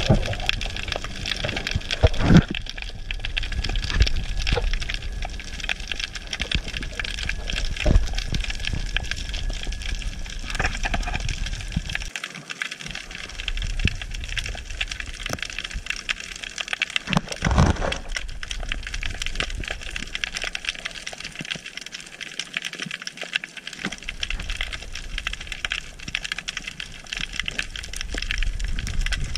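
Underwater ambience heard through the camera: a dense, continuous crackle of fine clicks, with a few louder knocks, the strongest about 2 seconds and about 17 seconds in.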